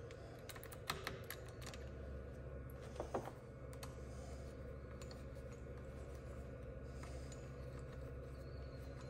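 Faint small clicks and taps of a hex key and T-handle driver on the bolts of a bicycle's mechanical disc brake caliper, a few about a second in and again around three seconds, over a low steady hum.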